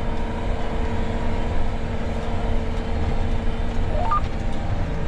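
John Deere 9R 490 articulated tractor's diesel engine running steadily, heard from inside the cab as a constant low rumble with a steady hum.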